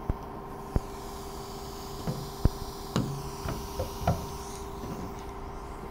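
A steady hum with about half a dozen sharp, irregular taps and knocks of a power tool and its bit against the van's sheet-metal tailgate.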